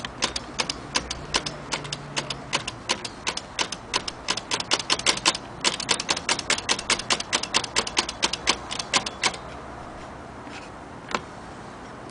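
Antique Corona typewriter being typed on: a quick, even run of key strikes, about five a second, that stops about nine seconds in, followed by one more strike near the end.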